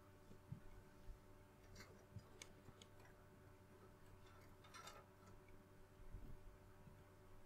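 Near silence over a faint steady hum, broken by a few light clicks and taps: a woven tea strainer being lifted off its metal hook on a hanging utensil rail and handled, with a small cluster of clicks about five seconds in.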